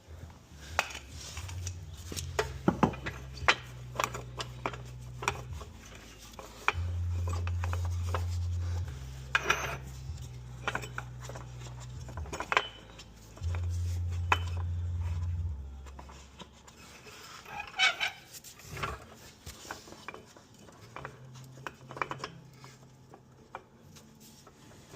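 Metal tools and hardware clinking and knocking during wheel work, in many short irregular strikes. Twice, about seven and fourteen seconds in, a low steady motor hum runs for about two seconds.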